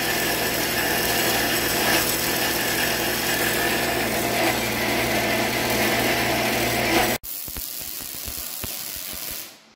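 Horizontal metal-cutting band saw running, its blade cutting through a steel bar with a steady, loud, multi-toned whine. About seven seconds in it gives way to the quieter, even crackling hiss of arc welding.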